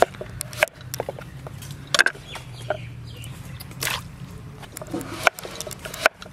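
Large kitchen knife chopping peeled raw papaya on a wooden board: sharp knocks of the blade on the board at irregular intervals, with chickens clucking in the background.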